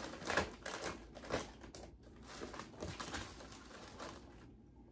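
Plastic snack packaging crinkling and rustling as packages are handled and shuffled on a shelf, with a few light knocks. It thins out and gets quieter towards the end.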